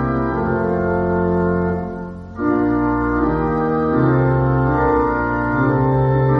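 Organ playing a hymn in held chords. The sound briefly drops away about two seconds in, and the next chord comes in.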